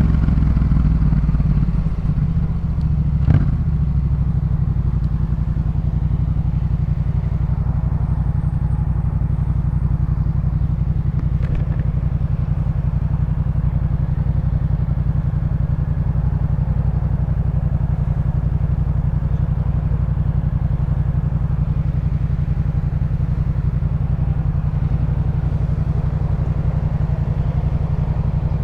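2018 Yamaha MT-07's 689 cc parallel-twin engine through a Jeskap K4 full aftermarket exhaust, coming down off the revs in the first couple of seconds and then idling steadily. A single sharp click sounds about three seconds in.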